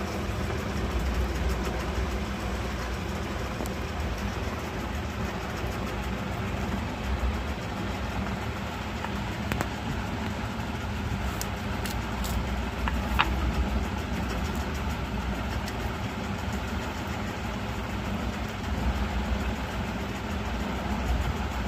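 A steady low hum of a running motor or engine, with a few faint ticks about halfway through.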